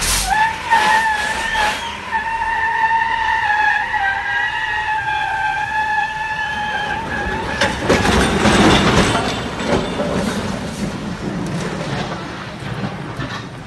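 A runaway semi-truck hauling a bulldozer on a lowboy trailer gives a long, steady, shrill tone for about seven seconds. Then comes a loud crash with banging and scraping as the rig goes off the road and overturns, dying away over the last few seconds.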